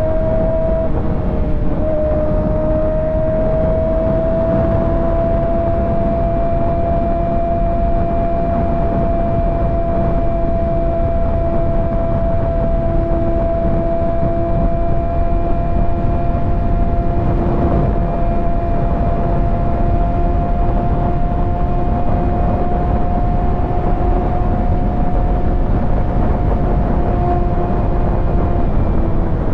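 Kawasaki ZX-6R 636's inline-four engine running at a steady highway cruise, its pitch rising a little over the first few seconds, then holding, and easing off slightly near the end, over heavy wind noise.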